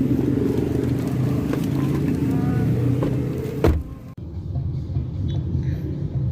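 Steady low motor-vehicle engine rumble, with a sharp click a little past halfway and an abrupt change in the sound just after it.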